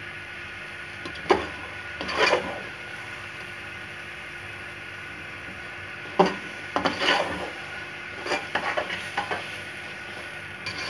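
Metal spoon stirring and scraping thick, nearly cooked carrot halwa in an aluminium pressure-cooker pot, knocking against the pot's side: once about a second in, again at two seconds, then a run of knocks and scrapes from about six to nine seconds.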